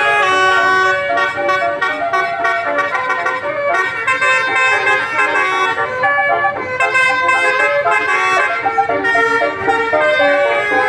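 Bus 'telolet' multi-tone horn playing a tune: several horn tones sounding together, stepping from note to note every fraction of a second, without a break.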